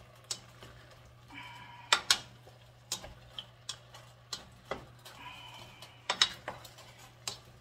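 A silicone spatula stirring chopped beef, tomatoes, onions and bell peppers in a stainless steel pot, with about a dozen irregular clicks and knocks where it strikes the pot.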